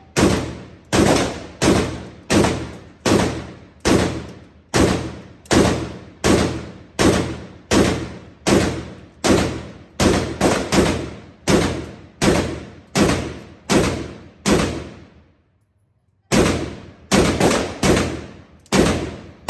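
AK-pattern 7.62×39 pistol fired semi-automatically in quick succession, about one shot every three-quarters of a second, each crack trailing off in echo; the rifle's gas setting has just been opened up so it cycles easier. The shots break off briefly about fifteen seconds in, then resume.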